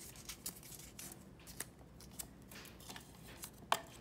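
Paper and cardboard handling: folded paper draw slips and a cardboard box being handled, with light rustles and scattered small taps and clicks, the sharpest a little before the end.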